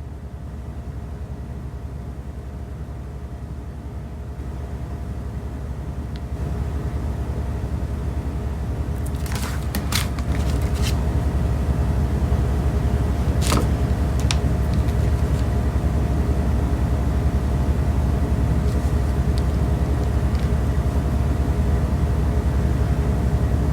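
A steady low rumble with a faint hum, growing louder over the first half, with a few short clicks about ten and thirteen seconds in.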